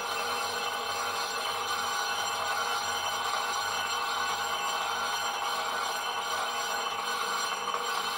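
Old 14.5-inch South Bend lathe skimming the face of a Jeep Cherokee XJ front brake disc with a carbide-tipped tool. The cut makes a steady sound with several high, unchanging tones in it.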